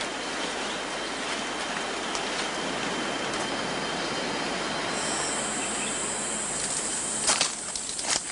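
Tropical forest ambience: a steady hiss of background sound, joined about halfway through by a high, steady insect buzz, with a couple of sharp snaps near the end.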